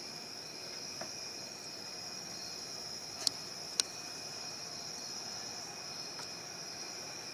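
Steady high-pitched insect chirring, with two sharp clicks about half a second apart a little over three seconds in.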